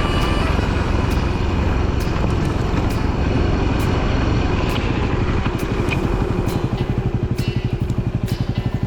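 Adventure motorcycle engine running steadily under way. About five seconds in, the revs drop and the separate engine beats come through as the bike slows toward idle.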